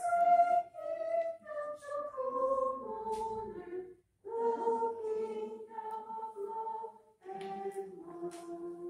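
Congregation singing a slow hymn verse in sustained phrases, with short breaks between phrases about four seconds in and again about seven seconds in.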